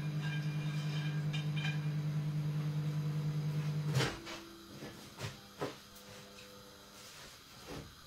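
Microwave oven running with a steady low hum and a slight pulse, cut off sharply with a clunk about four seconds in, followed by a few light knocks and clicks.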